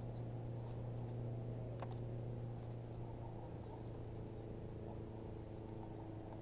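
Electric trolling motor humming steadily, with a single sharp click about two seconds in.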